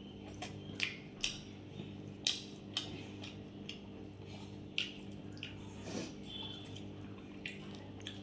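Wet mouth clicks and smacks of someone chewing a mouthful of fried rice and chili chicken, coming irregularly, over a steady low hum.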